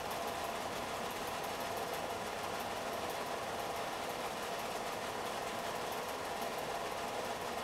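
Home-movie film projector running: a steady mechanical whirr with faint ticking.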